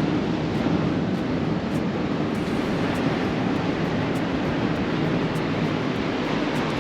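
Ocean surf washing steadily, heard from inside a sea cave: an even, unbroken rush.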